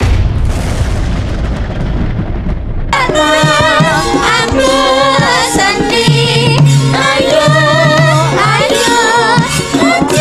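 A rushing noise that fades out over about three seconds, then Javanese gamelan music with drumming and several sinden singing together.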